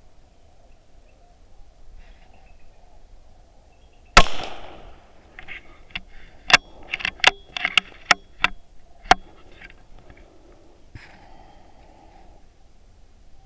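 A single sharp shot about four seconds in, followed by a quick run of about eight sharp cracks over the next few seconds.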